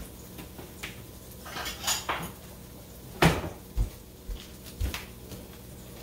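Kitchen clatter: dishes and utensils clinking and knocking, with a cupboard knock. There are several separate knocks, the loudest about three seconds in, as a bowl is fetched.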